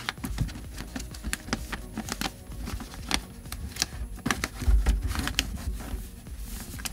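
A paper picture sheet rustling and clicking as it is pressed and worked into the corner slits of a plastic toy light-box screen. Many small irregular clicks, with a couple of louder thumps about five seconds in.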